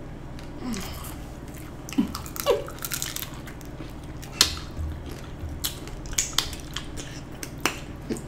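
Close-up eating sounds of crunchy hard-shell tacos dipped in cheese sauce being bitten and chewed: irregular sharp crunches and wet chewing.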